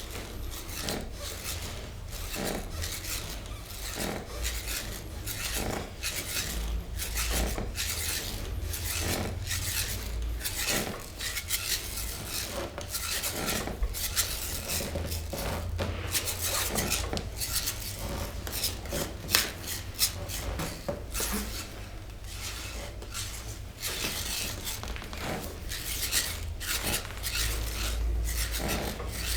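Hands massaging a person's body: a continuous run of rubbing strokes, roughly one or two a second, with one brief louder sound about two-thirds of the way through.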